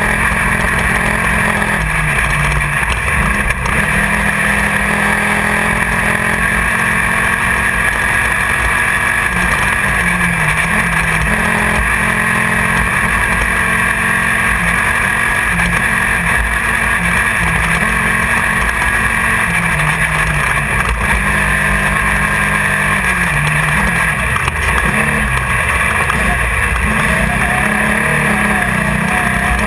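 Class 1600 off-road race car's air-cooled 1600 cc VW engine running hard, its pitch rising and falling every second or two with throttle and gear changes. Heard from inside the car over constant wind, rattle and dirt noise.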